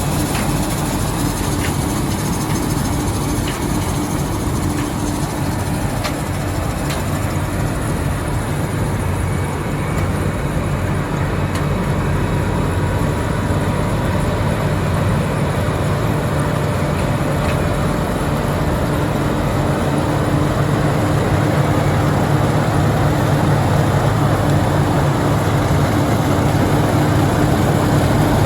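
Engine of vintage farm machinery running steadily, getting a little louder near the end.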